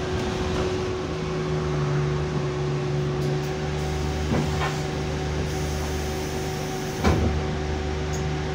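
Euro 5 diesel engine of an Alexander Dennis Enviro200 bus, heard from inside the saloon as a steady drone with a constant hum. A few short knocks come through, the loudest about seven seconds in.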